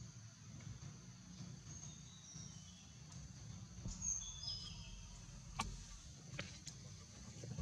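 Faint outdoor ambience: insects keep up a steady high drone while a few short, high bird chirps come in the first half. A few light clicks sound later on.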